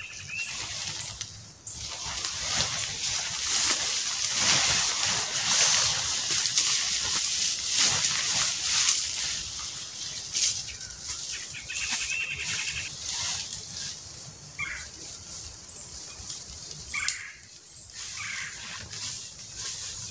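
Nylon rainfly of an Ozark Trail dome tent rustling and swishing as it is pulled over the tent and fastened, heaviest in the first half, with a single sharp click near the end.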